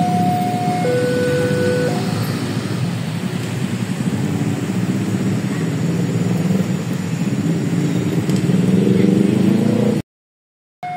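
Railway level-crossing warning alarm sounding its two-tone high-low signal, which stops about two seconds in. Then steady motor traffic noise of passing vehicles, with an engine revving up near the end, before the sound cuts off abruptly shortly before the end.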